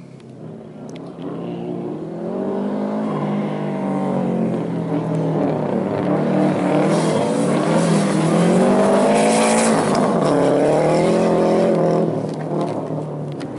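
Subaru Impreza's flat-four engine revving hard on a dirt rallycross course, its pitch climbing and dropping several times as the driver accelerates, lifts and shifts. A hiss of flung dirt rises in the middle as the car slides past close by, and the sound grows loudest near the end.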